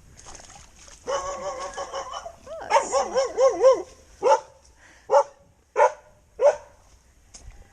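Border collie whining in a wavering pitch, then barking four short times, each under a second apart.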